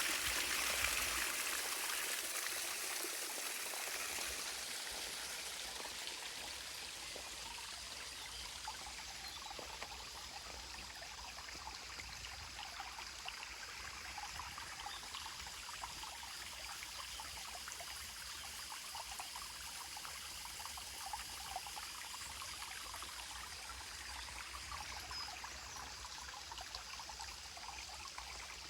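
Small waterfall splashing and trickling steadily, a little louder in the first few seconds before settling.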